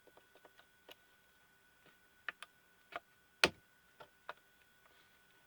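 Irregular small clicks and snaps of plastic parts as a pico projector's optical assembly is forced loose past its focus wheel. The sharpest crack comes about three and a half seconds in.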